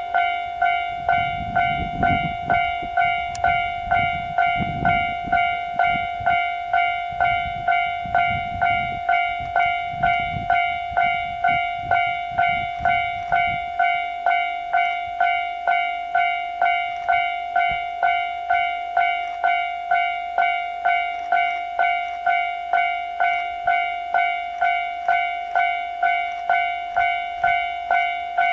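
Railway warning bell ringing steadily, a single-pitched ding repeated a little under twice a second. A low rumble underneath stops about halfway through.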